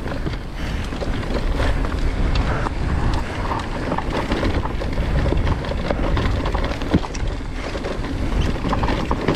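Electric mountain bike being ridden over rough, rooty trail: wind buffeting the microphone over the rumble and rattle of tyres and bike on roots and rocks, with a sharp knock about seven seconds in.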